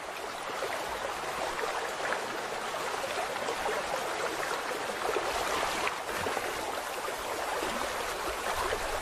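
Steady rushing and trickling of a flowing river.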